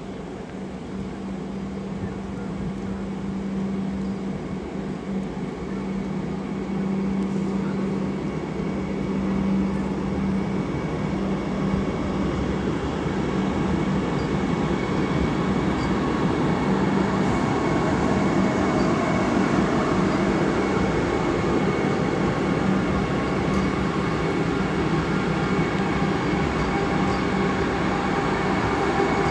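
Vande Bharat Express electric train approaching and running through, its running noise growing steadily louder over the first fifteen seconds or so and then staying loud, with a steady low hum in the first half.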